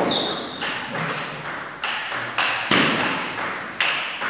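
Table tennis rally: the celluloid ball struck by rubber-faced bats and bouncing on the table, about two sharp ping-pong clicks a second, some with a short high ring.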